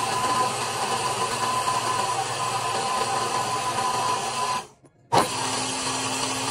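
Countertop blender motor running steadily, puréeing dates and water into a thick paste. It stops for about half a second a little past the middle, then starts up again.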